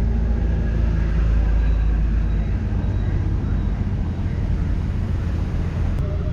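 A motor engine running steadily with a low rumble, with faint voices in the background.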